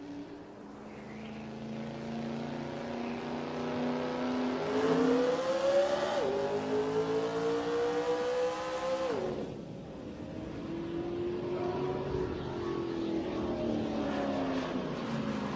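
Motorcycle engine accelerating through the gears. Its pitch climbs, drops sharply at a gear change about six seconds in and again about nine seconds in, then climbs more gently.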